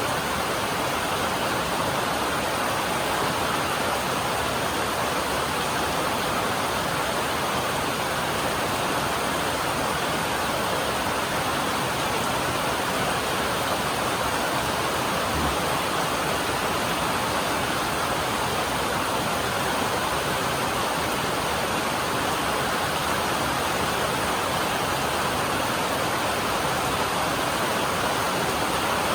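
Steady rain drumming on a metal roof: a dense, even patter.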